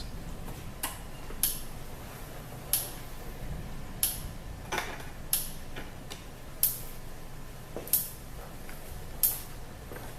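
Electric fence pulses: sharp clicks or snaps about every 1.3 seconds, with a few fainter clicks between them, as the fence is made to fault so the energizer alarm goes off.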